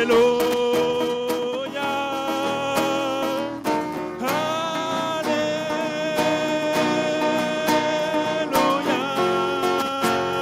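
A worship band plays a slow passage of a French worship song, with long held melody notes that slide into a new pitch a few times over a steady accompaniment.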